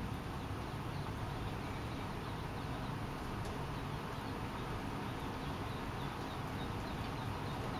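Mallard duckling peeping: repeated faint, high, short peeps over a steady background hiss.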